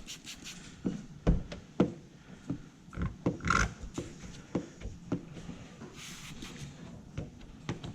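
Irregular knocks, taps and light handling noises from hands and tools working on paint protection film, with two louder thumps in the first two seconds and a few short hissy rustles.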